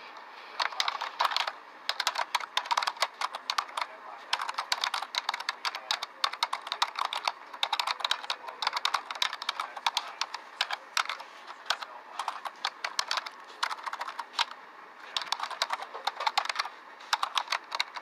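Keyboard typing: rapid, irregular key clicks in runs, broken by short pauses.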